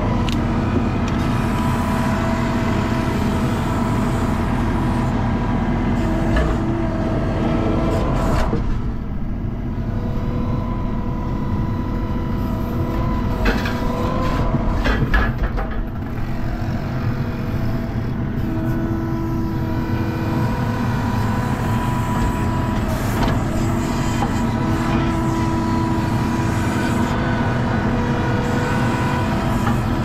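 ASV RT-40 compact track loader's diesel engine running under load, heard from inside the cab, its pitch shifting a few times as the machine drives and works its loader arms. A few sharp knocks come near the middle.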